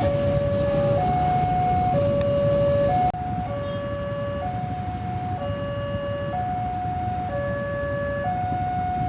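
Railway level-crossing warning alarm sounding: an electronic two-tone signal that alternates between a lower and a higher note, each held about a second, warning that a train is approaching and the gates are down. It plays over a steady low background rumble.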